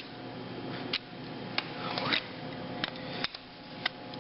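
Metal tools clinking and scraping while prying a main bearing out of an engine block: about five sharp separate clicks and a short scrape a little past halfway, over a faint steady hum.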